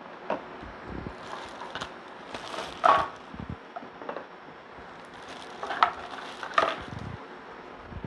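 A clear plastic bag crinkling and hard plastic wet/dry vac wheel parts clicking and knocking together as they are handled, with a few sharp knocks, the loudest about three seconds in.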